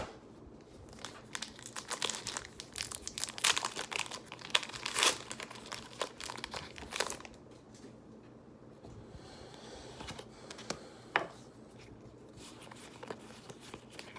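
Foil Pokémon trading card booster pack wrapper being torn open and crinkled: a dense run of crinkling and tearing for several seconds, then quieter, with a few single crackles later on.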